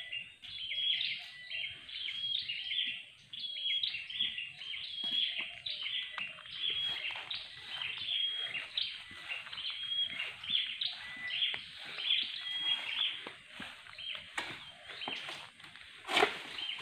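Birds chirping continuously in short, repeated high notes, with a brief sharp noise near the end.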